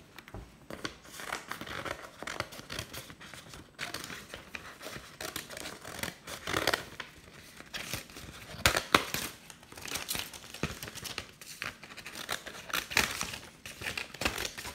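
Scissors cutting through paper in an irregular run of snips, with the paper rustling and crinkling as it is turned.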